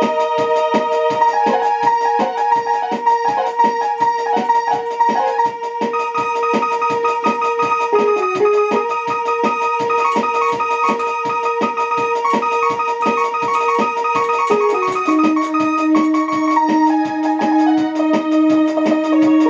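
Portable electronic keyboard played by hand: long held notes with a melody moving above them, over a quick, even pulse of short notes. About fifteen seconds in, the low held note steps down to a deeper one.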